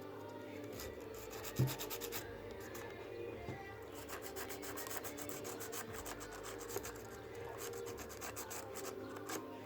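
Fine sandpaper rubbed rapidly back and forth over the oxidized copper contacts of a car instrument cluster, cleaning them so the gauge lamps make contact. A single sharp knock about one and a half seconds in.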